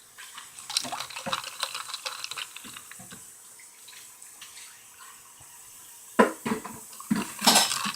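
Water running at a kitchen sink with dishes clinking as they are washed, the clatter busiest in the first few seconds, with a few louder sharp sounds near the end.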